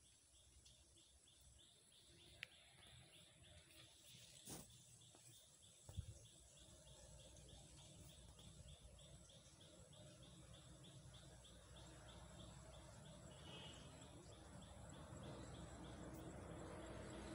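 Near silence: faint outdoor ambience with a high chirp repeated about five times a second, and a few faint clicks in the first six seconds.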